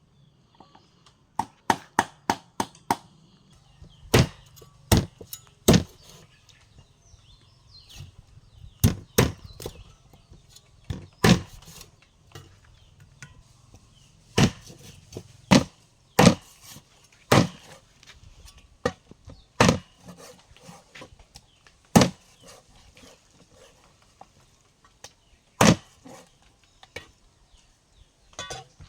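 Knife chopping on a cutting board in sharp single strikes: a quick run of about five near the start, then blows spaced a second or more apart with irregular pauses.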